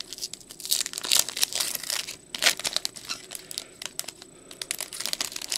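Foil wrapper of a 2024 Bowman baseball hobby card pack being torn open and crinkled by hand. The crackling is busiest between about one and two and a half seconds in.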